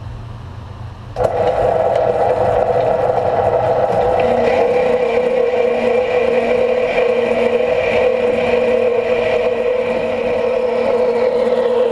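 Small Grizzly horizontal metal-cutting bandsaw switched on about a second in and running steadily, its blade cutting through a clamped shoulder bolt under flowing coolant; a higher steady whine joins in about four seconds in.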